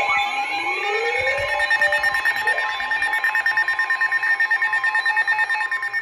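Several weather alert radios sounding their alarms together: steady alert tones under rising siren-like sweeps, turning into a rapid beeping about two seconds in that stops abruptly near the end.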